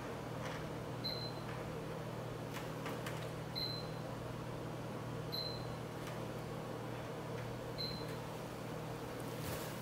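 Four short high beeps from an air purifier's control panel as its buttons are pressed, a couple of seconds apart, over the steady hum and whoosh of air purifier fans running.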